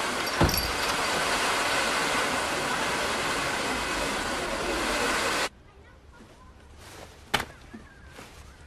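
Loud, steady hiss-like noise with a single click just after the start, cutting off abruptly about five and a half seconds in. After that comes a much quieter stretch with a sharp knock and a few faint handling sounds.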